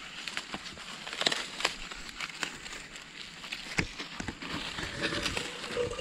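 Dry corn leaves and stalks rustling and crackling as they are pushed aside and handled while ears of corn are picked, with irregular sharp snaps and crackles.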